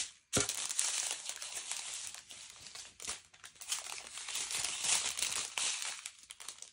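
A small plastic zip bag of diamond-painting drills crinkling as it is handled, a dense run of crackles that stops near the end.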